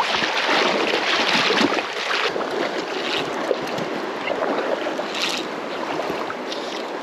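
River water rushing in a steady, noisy wash that eases a little about two seconds in.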